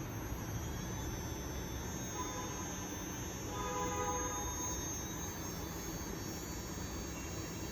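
RDD850 112 kW electric drive motor and its controller running steadily at low speed in the forward direction on a test bench, a steady hum with a thin, constant high whine.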